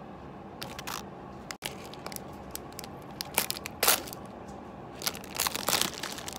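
Crinkly plastic snack wrapper being handled and torn open, in irregular crackles, with the loudest clusters a little past the middle and again near the end.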